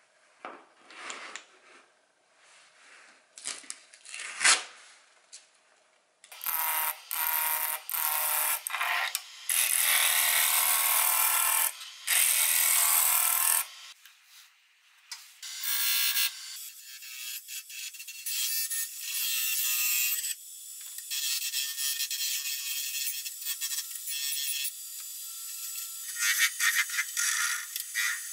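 A few light knocks of small parts set down on a wooden bench. Then from about six seconds in, a wood lathe turning a wooden blank while a steel chisel cuts it: high hissing scrapes in bursts of a second or two, becoming shorter and more frequent toward the end.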